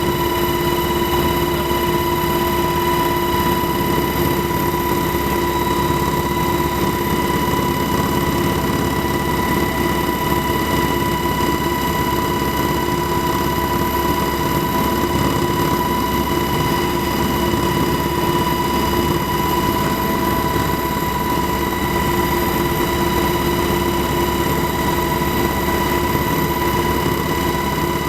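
Steady, unchanging hum of an engine or motor running at constant speed, with a whining tone over a rumble of noise.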